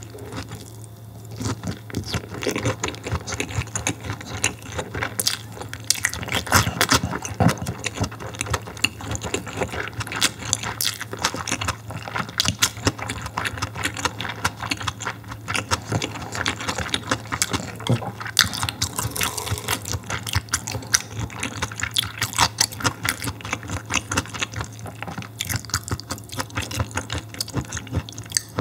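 Close-miked chewing of vinegar-cured mackerel sashimi (shime saba): a dense, irregular run of wet mouth clicks and smacks that keeps on for most of the stretch, over a low steady hum.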